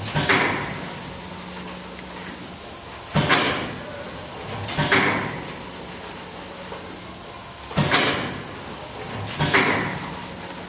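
Small syrup sachet packaging machine cycling: sharp mechanical clacks come in pairs about a second and a half apart, with a pair every three seconds or so. Each clack trails off in a short hiss, over a steady running noise.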